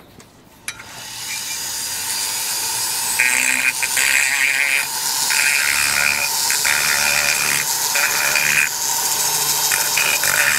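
A high-speed pencil grinder starts about a second in, spins up and runs with a steady high hiss. Its bit cuts the edges of the aluminium cylinder's ports in short repeated passes, chamfering off the sharp edges so the piston rings don't catch on them and break.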